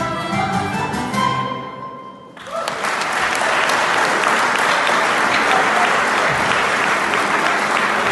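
A traditional-music group of tin whistles, flute, concertina, button accordion and guitar plays the last notes of a tune, which die away about two seconds in. Applause then breaks out and carries on steadily.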